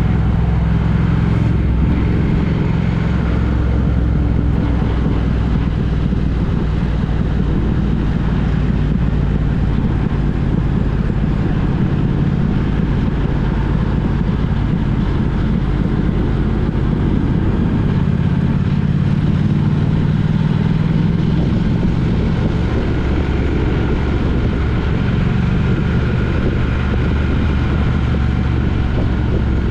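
A road vehicle driving along at a steady pace: a continuous engine hum over road noise, with the engine's pitch drifting slightly up and down.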